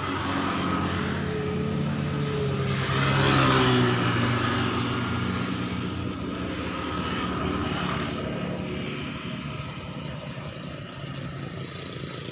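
An engine running steadily. It grows louder about three seconds in, then eases back to a steady hum.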